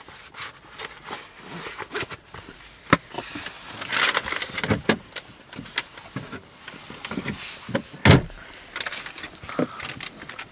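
Handling noises: a leather owner's manual wallet and its paper booklets rustling, clicking and knocking as they are closed and put away in a car's front passenger area. One heavier thump about eight seconds in.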